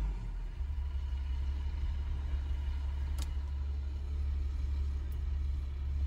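Truck running, heard as a steady low rumble, with a sharp click a little over three seconds in.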